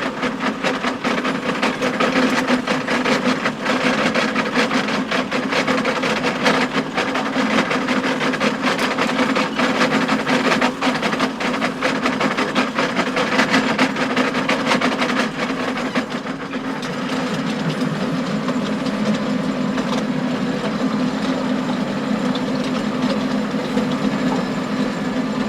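John Deere tractor's engine running steadily under load while driving a power harrow, with a dense, irregular clatter of stones knocking against the harrow's tines.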